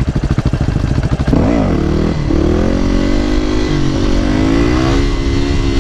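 Supermoto motorcycle engine chugging at low revs, then, about a second and a half in, the throttle opens and it revs hard, its pitch rising, dipping and climbing again before holding high, as the bike is pulled up into a wheelie.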